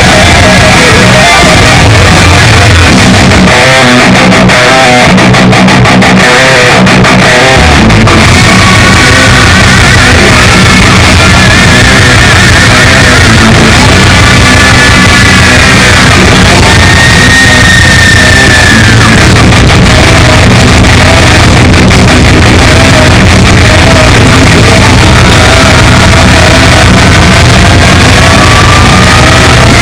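Loud rock music with distorted electric guitar, played without a break.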